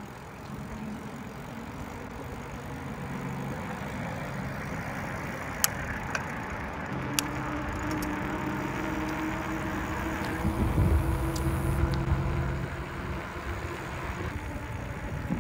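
Mountain bike with knobby tyres rolling along an asphalt path: steady tyre noise with muted wind noise on the microphone, and a low hum that comes and goes. A few sharp clicks near the middle.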